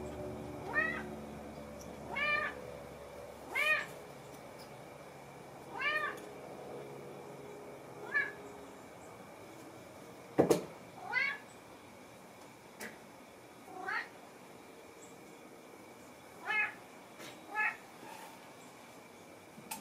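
Domestic cat meowing over and over, about nine short meows each a second or two apart, each rising and then falling in pitch. A sharp knock about halfway through.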